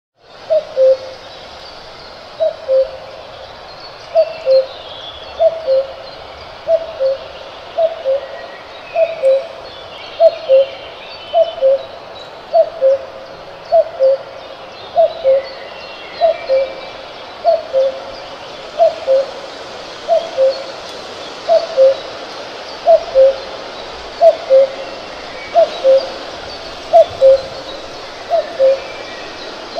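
A cuckoo calling its two-note 'cuck-oo', the second note lower than the first, over and over, about once every second and a half. Faint chirps of other birds sound in the background.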